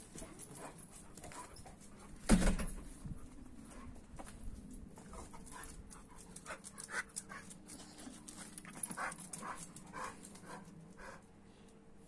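American Staffordshire terrier making strange vocal noises at a Kuvasz puppy: one loud noise about two seconds in, then a run of short repeated noises, about two a second, tailing off near the end.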